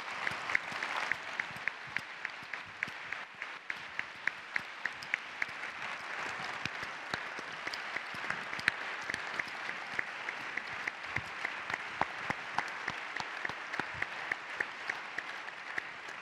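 Audience applauding steadily, a dense wash of clapping with individual sharp claps standing out.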